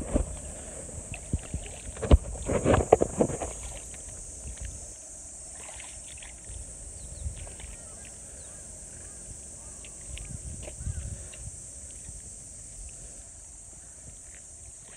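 Wet mud squelching and splashing as a person moves barefoot through it and sits down in it. Loud slaps come in the first few seconds, then softer sloshes now and then, over a steady high hiss.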